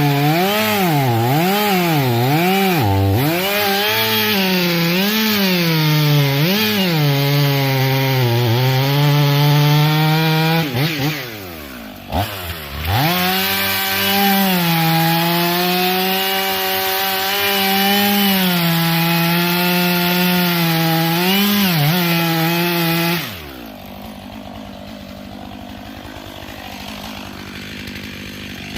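Two-stroke chainsaw cutting through a felled bur oak log at full throttle, its pitch swinging up and down as the chain bogs and frees in the cut. About eleven seconds in the throttle eases off briefly and then picks up again; near the end the saw drops away suddenly to a much quieter level.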